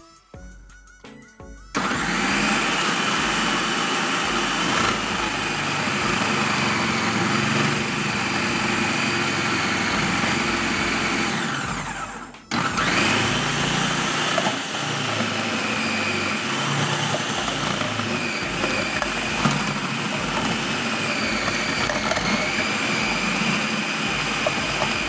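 Electric food processor motor running with a grating disc, shredding bottle gourd fed down the chute. It starts abruptly about two seconds in, winds down to a stop about halfway through, and starts up again at once.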